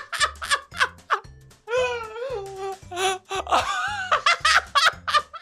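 Two men laughing hard in rapid bursts, with a long wavering high squeal of laughter about two seconds in, over background music with a steady low beat.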